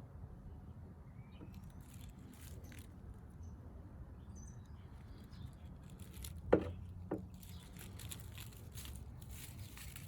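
Faint work noise over a low steady hum: light crackling ticks and two sharp knocks about half a second apart, past the middle.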